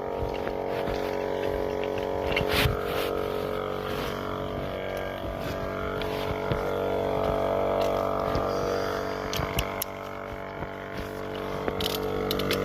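A vehicle engine running steadily, with a few scattered clicks and knocks over it.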